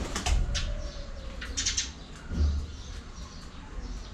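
Cockatiels moving about in their cage: scattered clicks and short rattles, with a dull bump about two and a half seconds in.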